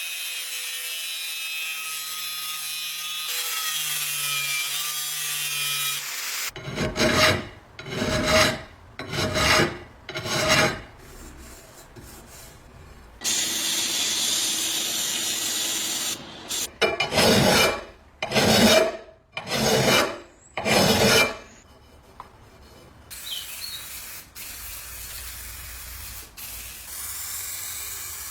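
Repeated back-and-forth hand abrading strokes, about one a second, in two separate runs. Between them are stretches of steady hiss.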